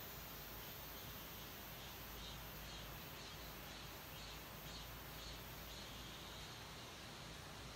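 Faint outdoor background hiss. From about two seconds in, a small creature chirps with a short high note, repeating about twice a second for a few seconds.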